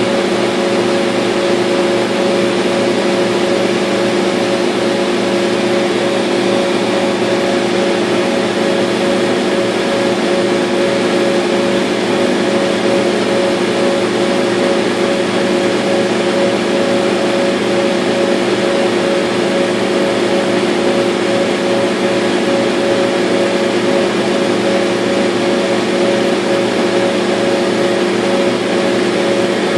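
Laser cutter running while it cuts 1/2-inch birch: a steady, even machine hum with two held tones.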